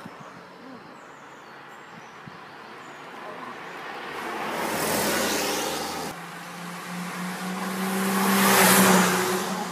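Two sports cars driving past one after the other. A Porsche Boxster's flat-six rises to a peak about five seconds in and then cuts off suddenly. A BMW E30 3 Series convertible then passes louder near the end, its engine note holding steady.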